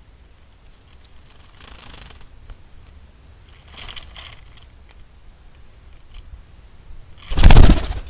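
American robin bathing in a shallow saucer bird bath, splashing water with its fluttering wings in two short bouts, then a loud, sudden flurry of wingbeats and splashing near the end as it takes off.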